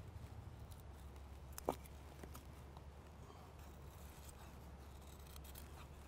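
Knife blade shaving thin curls down a wooden stick to make feather sticks: faint scraping strokes, with one short sharp click about a second and a half in.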